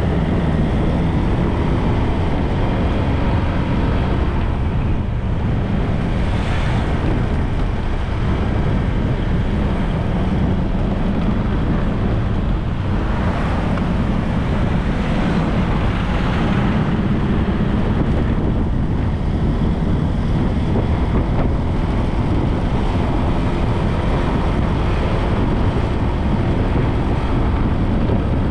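Steady rush of wind on the microphone of a camera riding along a street, mixed with road and traffic noise, swelling a few times as the noise rises and falls.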